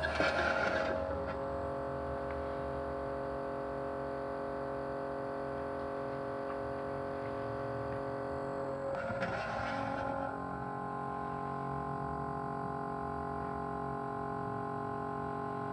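Small motor running with a steady vibrating hum. About nine seconds in there is a brief rattle, after which the hum goes on in a slightly changed tone.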